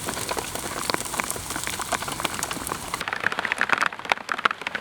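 Rain falling, with many separate drops hitting close by. About three seconds in the high hiss drops away, leaving sharper, closer drop hits.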